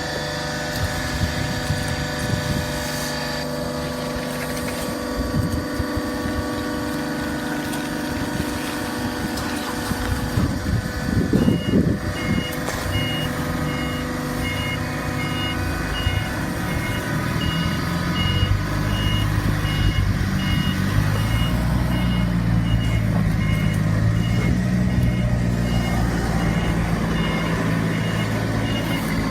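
Machinery of a hydraulic baling plant running: a steady motor hum, a short loud clatter partway through, then a high electronic beep repeating at an even pace while a heavier, wavering engine rumble builds in the second half.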